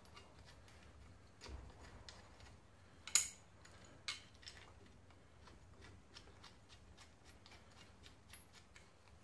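Steel bolts and a flat steel holding bar clicking and tapping against a differential's pinion flange as the bolts are fitted by hand: light scattered metallic ticks, with a sharper clink about three seconds in and another about a second later.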